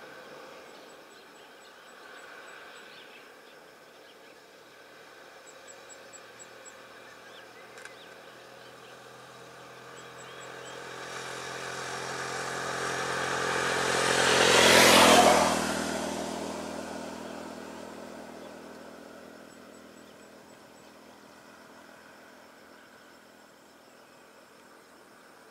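A motor vehicle passing close by: its engine and road noise build over several seconds, peak about fifteen seconds in, then fade away.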